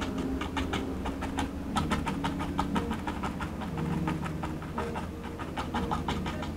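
Flat nylon paintbrush tapped repeatedly against a canvas with acrylic paint, a quick irregular run of soft taps, several a second, as bushes are stippled in.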